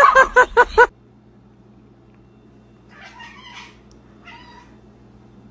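Domestic cat meowing: a quick run of about five short, loud calls in the first second, then two fainter meows a few seconds later.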